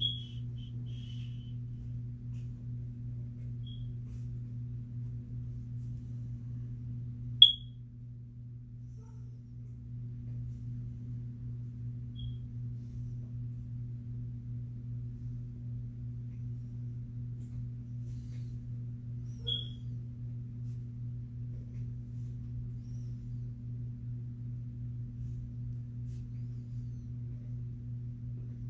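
A steady low hum with a few brief high-pitched chirps, unevenly spaced; the loudest is a sharp chirp about seven seconds in.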